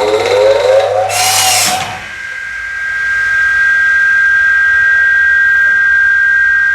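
Electric power-tool motor spinning up with a rising whine, a brief harsh burst of noise about a second in, then running at a steady high whine.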